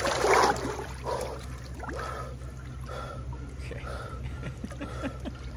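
Water splashing loudly in a cold plunge tub as a man drops into it, then his short, hard breaths through pursed lips as he sits in the cold water, over a steady low hum.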